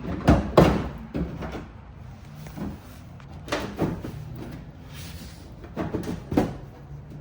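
A stiff plastic rear wheel well liner knocking and rubbing against a pickup's wheel well as it is forced into place. The knocks come in scattered groups, the loudest about half a second in.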